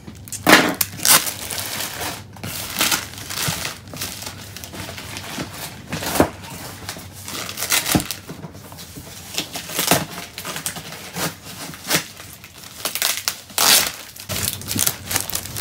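Clear plastic wrapping crinkling and crackling in irregular bursts as it is cut, pulled off a cardboard box and bunched up by hand.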